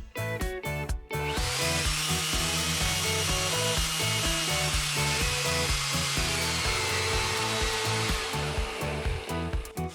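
Random orbital sander running, starting abruptly about a second in and fading out near the end, with a faint high whine over its hiss. Background music with a steady beat plays underneath.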